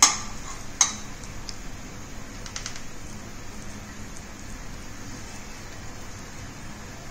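A stainless steel plate clinks sharply twice, under a second apart, as it is handled, then a few faint light ticks follow while vegetable filling is pressed onto bread. A steady low hum runs underneath.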